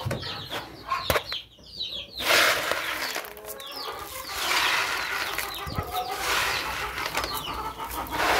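Grain flung by hand from a basin and pattering onto bare earth, with pigeons flapping in to land and chickens clucking.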